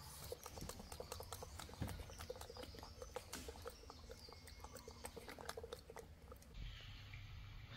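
A pet monkey making soft, faint chirping squeaks mixed with small clicking sounds.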